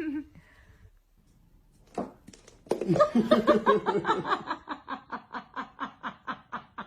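A person laughing in a long, even run of laughs, about three a second, starting about three seconds in after a short pause.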